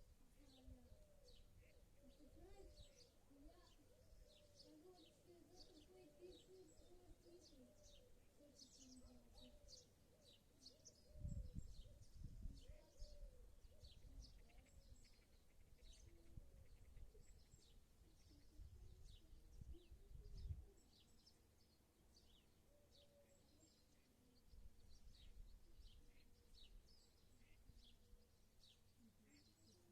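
Faint birdsong: many short, high chirps from small birds keep coming, with a lower wavering call in the first few seconds. Low rumbles come twice, at about a third and two thirds of the way through.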